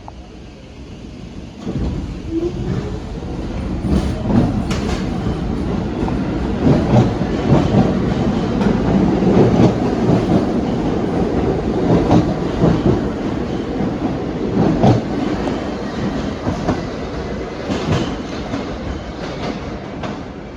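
New York City subway train running through the station, starting about two seconds in, with a loud rumble and wheels clattering over the rail joints.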